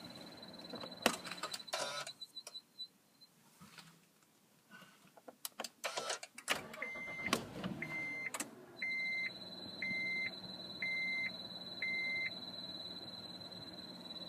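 Honda Odyssey with a steady high-pitched whine, the strange engine or fan noise, over a low hum. The whine stops about three seconds in, and a few clicks and knocks follow. Then comes a run of six electronic chime beeps about a second apart, and the whine comes back near the beeps' end.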